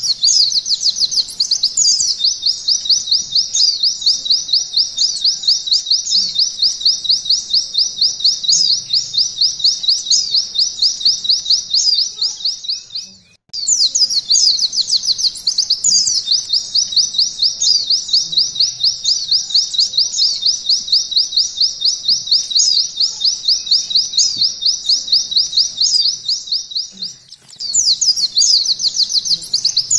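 White-eye (pleci) singing a long canary-style 'nembak' song: a high, rapid trill of quick falling notes in long unbroken phrases. The song breaks off briefly about halfway through and again near the end, then starts up again.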